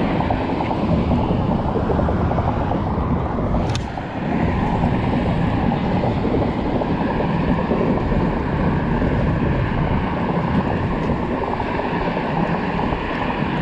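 Steady, loud wind buffeting on an outdoor action-camera microphone, a rough low rumble with one brief lull about four seconds in.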